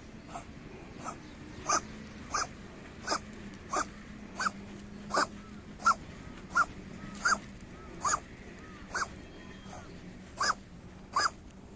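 A cat coughing in a long, steady series of short, sharp coughs, about three every two seconds.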